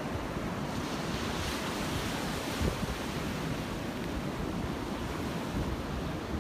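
Wind buffeting the phone's microphone over the steady wash of ocean surf breaking offshore, the hiss of the surf swelling for a couple of seconds early on. A brief thump about two and a half seconds in.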